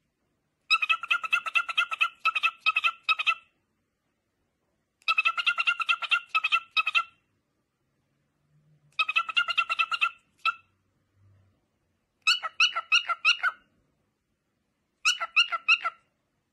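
Cockatiel giving runs of rapid, repeated chirps: five bursts, each one to three seconds long, with short silent pauses between them.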